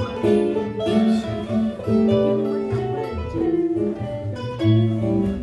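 Several acoustic guitars playing an instrumental passage of a folk song live, with no singing.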